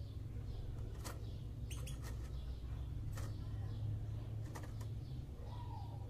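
Caged Java sparrows making a handful of short sharp clicks and faint chirps, scattered irregularly, over a steady low hum.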